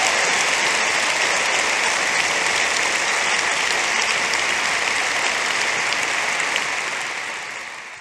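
Large audience applauding steadily, the clapping fading out near the end.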